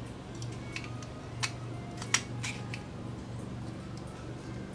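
A few small, sharp clicks of the plastic parts and circuit board of an Omron H3BA-8 electronic timer being pressed together by hand, the loudest about two seconds in, over a steady low hum.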